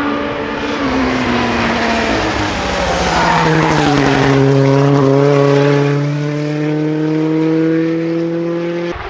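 Porsche 911 rally car's flat-six engine passing at speed on a rally stage, with tyre and road noise. Its note drops in pitch as it goes by, then holds and rises slowly as it pulls away. The sound cuts off suddenly near the end.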